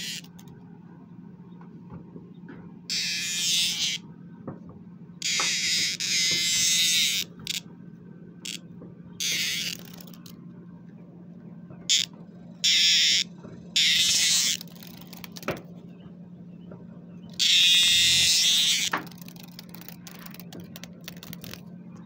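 Male superb dog-day cicada buzzing loudly in short, irregular bursts, about six of them, each from half a second to about two seconds long, with a few brief clicks in between.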